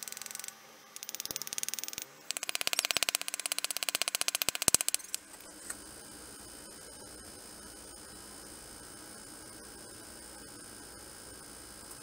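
Rapid clicking, about ten clicks a second, in a short run and then a longer, louder run during the first five seconds, as bearings and an axle are worked into the hub of a 6.5-inch scooter wheel mag. After that only a faint steady hum remains.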